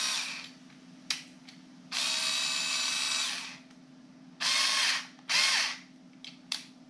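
Teccpo 4V Max cordless screwdriver's small motor whirring in bursts, running free. A run ends just after the start. Then comes a longer run of under two seconds, then two short runs that spin up and wind down, with a few sharp clicks in between.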